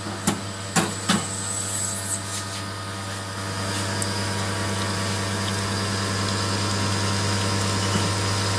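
Espresso machine pump running with a steady hum while pulling a shot to flush out the cleaning chemical, with a few clicks in the first second or so.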